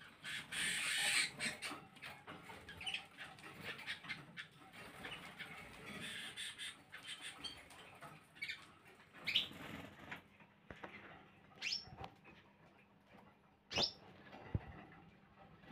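A flock of canaries, Gloster and other types, in an aviary flight cage: short chirps and twitters, with wing-flapping and small knocks on perches and wire. There is a flurry of flapping in the first second or so, and three sharp, loud calls in the second half.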